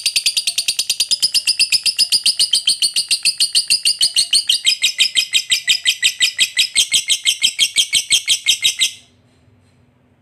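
Lovebird giving a long 'ngekek' chatter: an unbroken run of shrill, rapid notes, about eight or nine a second, that cuts off abruptly about nine seconds in.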